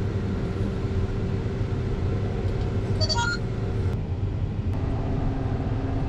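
Tractor engine running steadily under load, with a brief cluster of high tones about halfway through.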